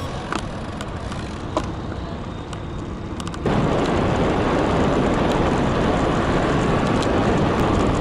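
Wind noise on a handlebar-mounted action camera's microphone as a road bike rides along the street, with a few light clicks. About three and a half seconds in it cuts suddenly to much louder, steady wind rush at higher riding speed.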